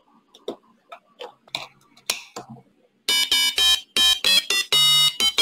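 Small handling clicks and rustles as wires are connected to the circuit board. Then, about three seconds in, a homemade Arduino stylophone starts playing through a salvaged headphone driver, its screwdriver stylus tapped on the keys: a quick run of short, buzzy electronic notes at changing pitches.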